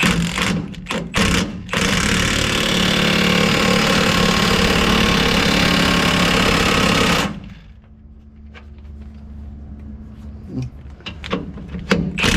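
Impact wrench hammering in a few short bursts, then running steadily for about five and a half seconds before stopping, followed by light metallic clinks of tools and parts.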